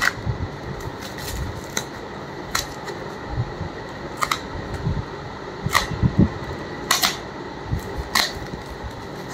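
White plastic packaging being cut and handled with a small knife: irregular sharp clicks and crackles of the plastic, about half a dozen, over a low rustling of hands on the wrapping.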